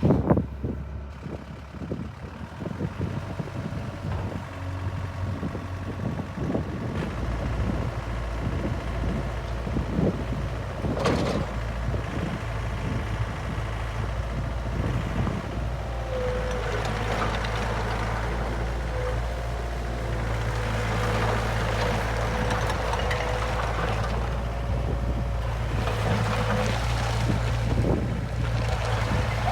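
Takeuchi TL130 skid steer's Yanmar diesel engine running, picking up speed about seven seconds in. Occasional knocks sound throughout, and a steady whine joins from about sixteen seconds in.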